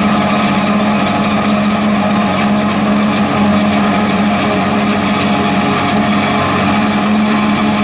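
Tractor diesel engine running steadily, with a constant drone and no change in pitch.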